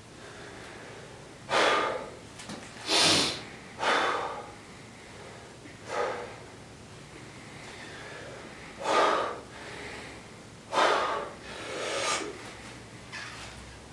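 A man's hard, noisy breathing while straining to bend a horseshoe by hand: about eight sharp, forceful exhalations, irregularly spaced a second or a few seconds apart.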